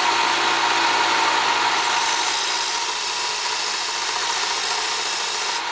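Electric 1-inch belt sander running steadily while a wooden drawer guide is held against the belt, sanding a shallow notch about a sixteenth of an inch deep. Motor hum under a steady sanding hiss; the hiss drops away near the end as the piece comes off the belt.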